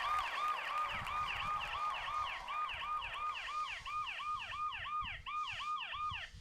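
Smartphone anti-theft alarm app sounding through the phone's speaker: a loud siren-like wail, each note sweeping up and down about three times a second, set off by the phone being taken from a bag in pocket mode. It cuts off suddenly near the end.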